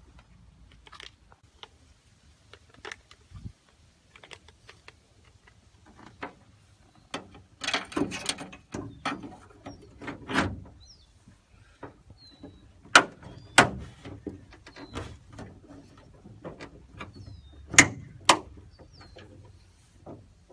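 Irregular clicks, knocks and snaps of parts and hand tools being worked while a hood vent is fitted on the car's hood, with a few sharp loud snaps in the second half. Faint bird chirps now and then.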